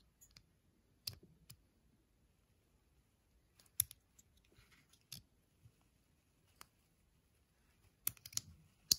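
Black plastic case of a TDK clip-on ferrite core being snapped shut on its hinge and handled: a few sharp plastic clicks, the loudest about four seconds in and again near the end.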